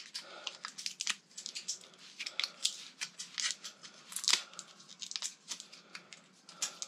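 Close-up handling of a tire plug kit: a run of irregular light clicks, rustles and snips as a sticky rubber plug strip is readied.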